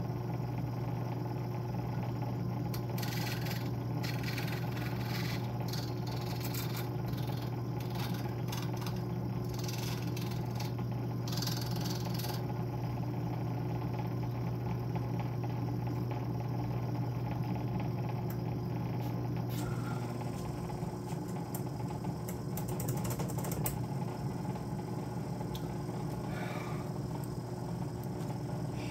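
A small electric grinding tool runs steadily with a low hum, while a 3D-printed plastic repair peg is ground down. Scratchy bursts of grinding contact come and go, mostly in the first half.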